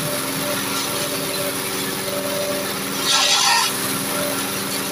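Grass chopper machines running, driven by a red stationary engine with a steady drone, shredding leafy branches as they are fed in; a louder burst of chopping about three seconds in.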